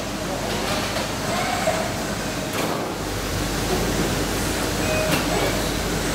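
Steady mechanical noise of automated cage-washing machinery and an industrial robot arm, with a few short, faint whines. A low hum grows louder about three seconds in.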